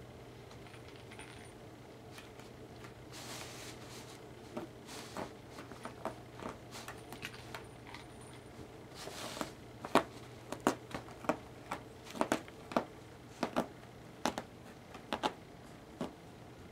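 A cat pawing and digging at a bath mat on a tile floor: scraping rustles, then a run of sharp clicks and knocks as the mat is dragged and struck, the loudest about ten seconds in, over a steady low hum.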